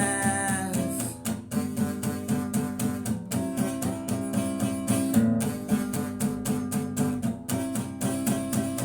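Rock song with guitars and a steady beat; a held sung note on "minds" ends about a second in, and the guitars and rhythm carry on without voice.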